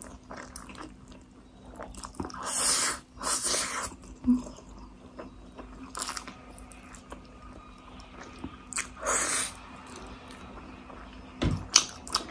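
Close-up eating sounds of a person slurping and chewing Buldak spicy instant noodles: a series of short noisy slurps, with quieter chewing and mouth sounds between.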